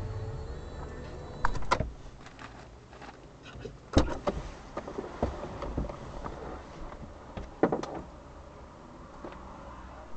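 A few sharp clicks and knocks inside a stationary car, the loudest about four seconds in, with a low hum fading out in the first two seconds.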